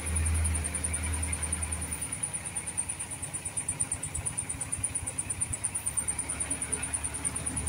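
Diesel engine of an Agrimac 926 wheel loader running under load for about two seconds, then easing off to a lower, rapid even throb as the loader manoeuvres.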